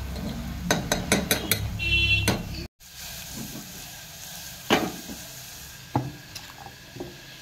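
A steel ladle stirring onions and garlic frying in oil in a small aluminium pressure cooker, clinking and scraping against the pot, with a brief metallic squeak about two seconds in. The sound cuts off abruptly, then a quieter sizzle of frying oil goes on with a few sharp clicks.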